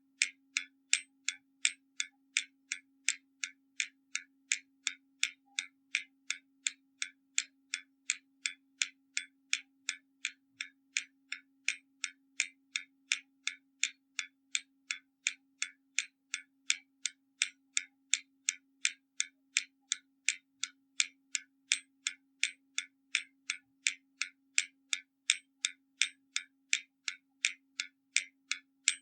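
Hermle mechanical skeleton clock ticking: its escapement gives a quick, even tick about two and a half times a second, some ticks slightly louder than others.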